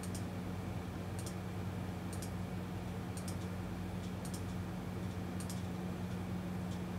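Computer mouse button clicked about once a second to step through photos, each click a quick double snap, over a steady low electrical hum.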